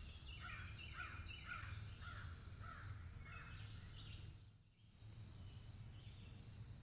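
Faint woodland bird calls: a quick series of short falling notes repeated for the first few seconds, with a few other brief high chirps. The sound briefly drops out about four and a half seconds in, then the faint outdoor background resumes.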